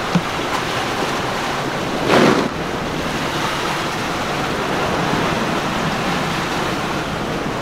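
Sea rushing past a sailing yacht under way, a steady wash of water and wind, with a louder surge of water about two seconds in.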